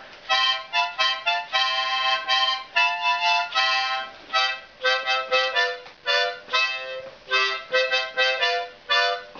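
Harmonica played solo: a tune of short, separate chords and notes, one after another.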